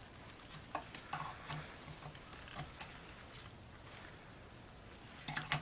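Faint, scattered small clicks of a steel hood latch and its springs being handled and fitted back together, with a quicker run of clicks near the end.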